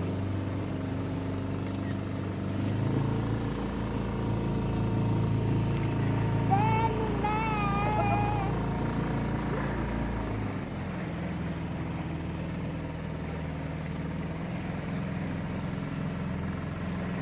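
Small tour boat's engine running steadily, its low sound dropping off about ten seconds in. A brief wavering high-pitched sound comes about six to eight seconds in.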